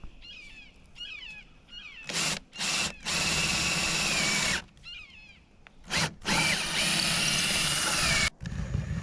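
Power drill running in two short blips, then two long steady runs of about one and a half and two seconds with a short blip between them.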